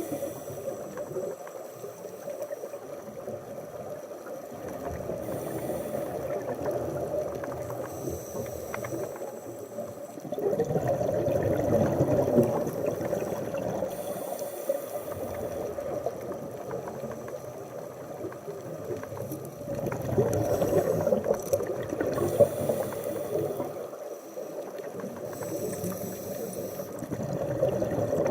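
Underwater sound of scuba breathing: exhaled bubbles from a diver's regulator gurgling and rushing in repeated swells a few seconds apart.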